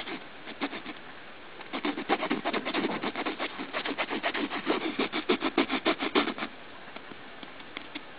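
A fingernail scratching on the fabric flap of a soft bag in quick repeated strokes, about four or five a second. There is a short spell first, then a longer run that stops about six and a half seconds in.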